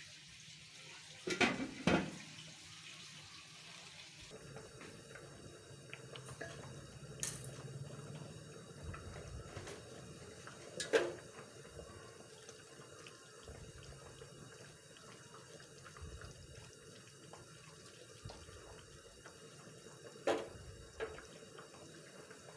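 Pot of basmati rice and water bubbling on the stove, with a few sharp clinks of a utensil against the pot.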